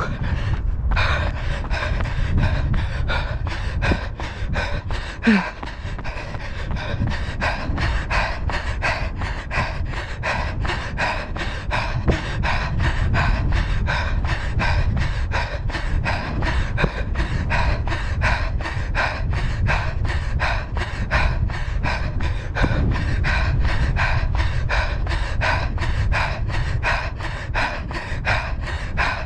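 A runner's heavy panting during a hard tempo run, with even footfalls on asphalt about three a second. Wind rumbles on the camera's microphone underneath.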